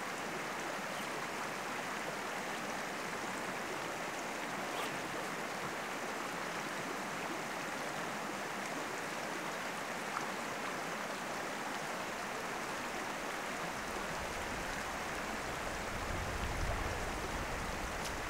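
Steady outdoor rushing noise, like a stream running, with a low rumble building about fourteen seconds in.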